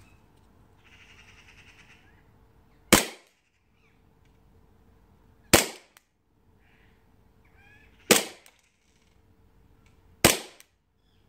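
Tokyo Marui M9A1 gas blowback airsoft pistol fired four times, single shots two to three seconds apart, each a sharp crack with a short fading tail.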